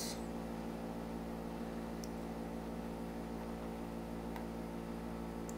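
Steady low electrical hum with faint hiss, the background noise of a microphone recording, with a few faint ticks.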